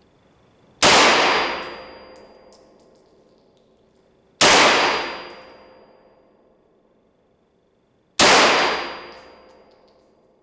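Three single shots from a Chiappa CBR-9 Black Rhino 9 mm Luger semi-automatic, fired slowly about four seconds apart. Each shot echoes and dies away over a second or two in the indoor range. Ejected brass tinkles and rings after the shots.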